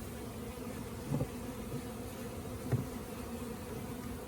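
Honeybees buzzing in a steady, low hum around newly installed hives, with two brief thumps about a second and nearly three seconds in.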